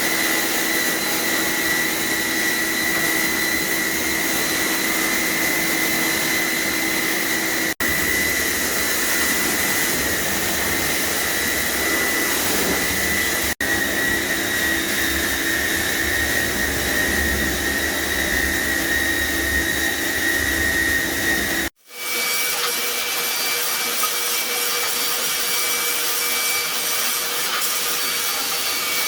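High-pressure washer running and spraying water: a loud, steady hiss over a high motor whine. It breaks off for an instant three times, and the whine changes pitch after the last break.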